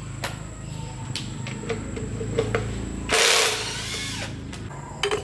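Workshop tool sounds: scattered clicks and knocks, with one loud, hiss-like burst lasting about a second, starting about three seconds in.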